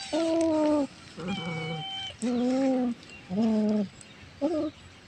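Adult cat with a lizard held in its mouth giving a run of low, drawn-out yowls, four of about half a second or more and a short one near the end, with brief gaps between; the warning call of a cat guarding its prey from approaching kittens.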